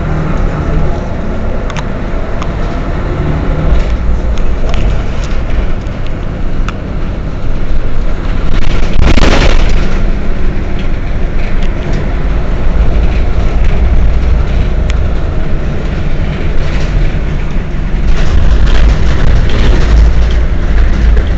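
Mercedes-Benz O 405 N city bus running, a heavy low engine rumble, with a short loud hiss about nine seconds in; the engine grows louder about eighteen seconds in.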